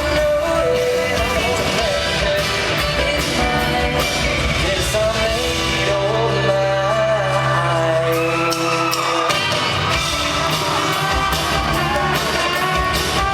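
Live pop-rock band with a male lead singer, heard from the audience. About five seconds in, the drums drop out under long held bass notes and vocals. Around nine seconds the full band comes back in.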